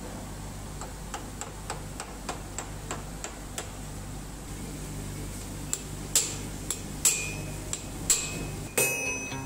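Blacksmith's hand hammer striking white-hot iron on an anvil while forge-welding a steel insert into an axe blank. Light, quick taps come about three a second, then after about six seconds a few heavier blows that ring.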